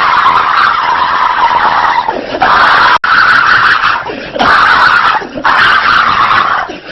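A person's voice imitating a police siren, a loud, distorted wail that rises and falls in pitch, broken by short gaps every second or so. There is a sudden brief dropout about three seconds in.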